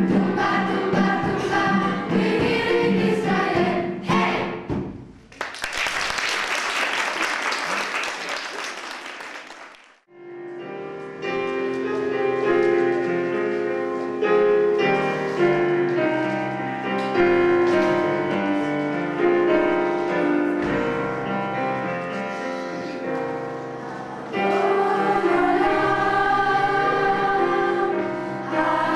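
Children's choir singing; the song ends about five seconds in and is followed by about five seconds of applause. After a short pause the choir starts another song with long held notes, growing fuller near the end.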